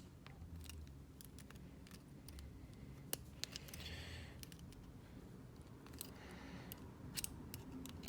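Small metal parts of a pin tumbler cabinet lock being handled and fitted together: scattered light clicks, with a brief soft scrape about four seconds in and another a little after six seconds.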